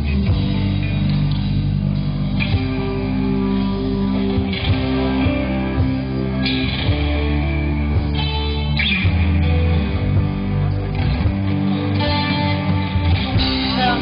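Live rock band playing: electric guitars and bass guitar with drums.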